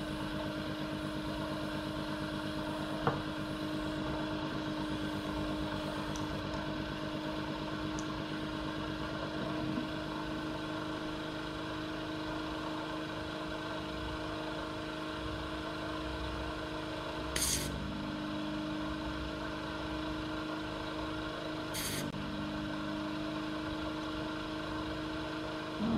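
Vacuum pump of a DIY desoldering rig running with a steady hum. Twice in the second half there is a short hiss of rushing air as the valve on the suction tube is opened at a solder joint, and the pump's tone dips briefly each time.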